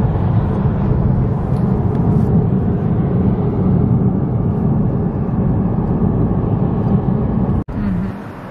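Steady low rumble of a car's engine and tyres heard inside the cabin while driving. It cuts off suddenly near the end, giving way to quieter outdoor traffic sound.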